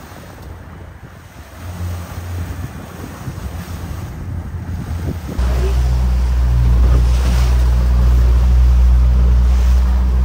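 Wind and waves on the open ocean heard from a small boat, then, from a sudden cut about five seconds in, the much louder steady drone of twin Mercury outboard motors running under way, with wind and water rushing past.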